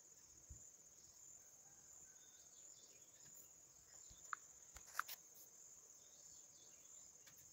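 A cricket's steady high trill, with a few light metallic clinks about halfway through as a steel ladle touches a stainless steel idli plate while batter is filled into its cups.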